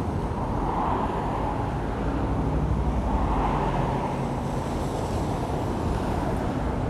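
Steady outdoor noise of surf breaking on a rocky shore, mixed with traffic on the coastal highway, with a faint engine hum in the middle.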